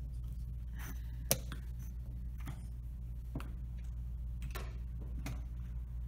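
Plastic chess pieces being set down on a roll-up board and the buttons of a digital chess clock being pressed during a fast game: about six sharp clicks and knocks, the sharpest a little over a second in.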